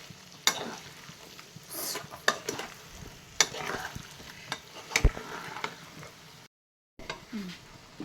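Chicken pieces being stir-fried in hot oil in a karai: a light sizzle, with the spatula knocking and scraping against the pan every second or so. The sound breaks off for about half a second near the end.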